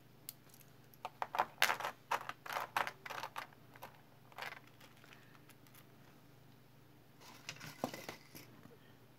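Metal chain bracelets jangling as they are handled and laid down on a hard tray: clusters of small sharp clinks and clicks for a few seconds, then a few more near the end.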